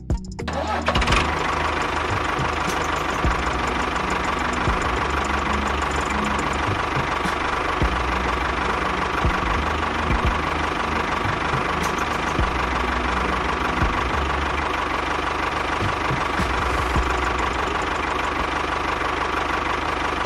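A small engine starts up about a second in, then runs steadily with an even, rattling drone.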